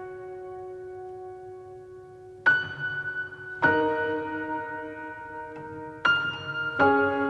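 Slow background piano music: a held chord fades out, then new chords are struck four times, each left to ring and die away.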